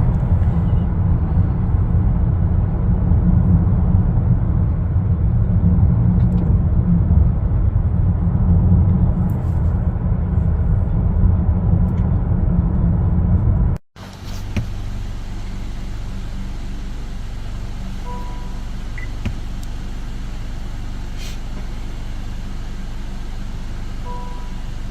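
Cabin road and drivetrain noise of a 10th-gen Honda Accord being driven, a steady low rumble. About halfway through it cuts off, giving way to a quieter steady hum of the car standing, with two short faint beeps a few seconds apart.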